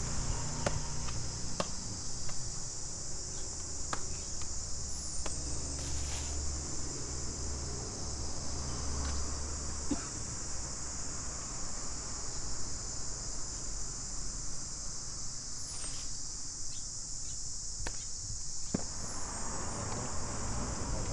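Steady high-pitched drone of insects, unbroken throughout, over a low rumble, with scattered sharp knocks and taps.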